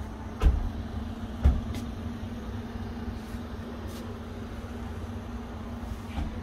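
Street traffic from the road below: a steady low rumble with a constant hum. Two short thumps about a second apart come near the start and are the loudest sounds.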